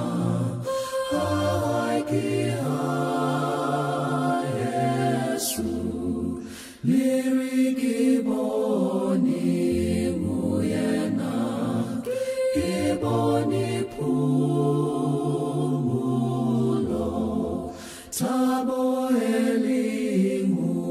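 A worship group of men and women singing a worship song together in harmony, with long held notes and short breaks between phrases.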